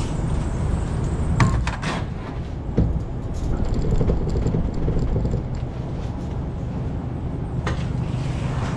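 An engine running steadily with a low drone, likely the farm machine working the shavings cart, with a few clanks and rattles about one and a half and three seconds in.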